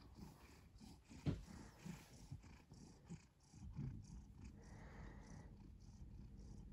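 Domestic cat purring softly while being stroked: a low, continuous rumble. A brief thump about a second in.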